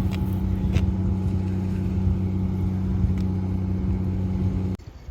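An engine running steadily with a low, even hum, which cuts off suddenly near the end.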